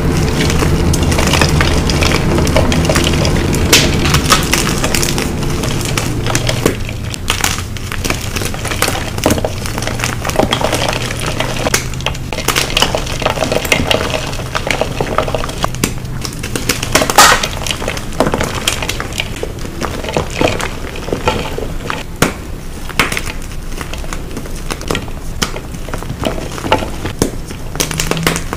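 Blocks of gym chalk being crushed and crumbled, a dense, irregular run of crisp crunches and cracks with a powdery crumble between them.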